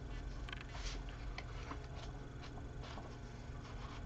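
Pages of a manga paperback being leafed through: a string of faint paper ticks and rustles, a few each second, over a low steady room hum.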